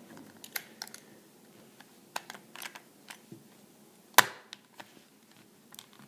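Plastic clicks of a URC MX900 remote's snap-fit housing being pried apart by hand: scattered light clicks, with one louder snap about four seconds in.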